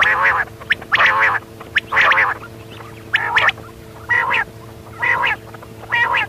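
Quail calling over and over, a short harsh call about once a second, seven times, over a steady low hum.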